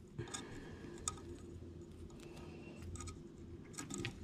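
Faint scattered clicks and ticks of hands handling a fishing rig: shock-leader line, big hooks and rubber muppet lures. A low room hum sits under them.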